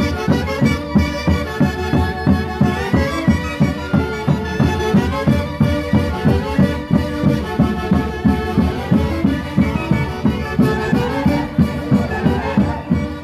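Marching band of saxophones and brass with bass drums playing Santiago festival music live in the street: sustained reedy chords over a steady drum beat of about two to three strokes a second.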